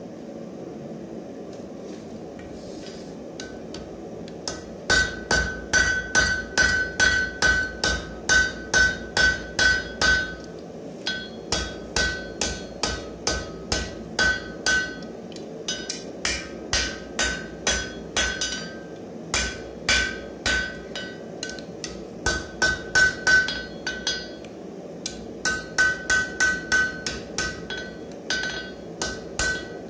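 Hand hammer forging a red-hot steel bar on an anvil: from about five seconds in, runs of quick blows come about three a second with short pauses between them, and each blow rings with a clear high anvil tone. A steady rushing noise runs underneath.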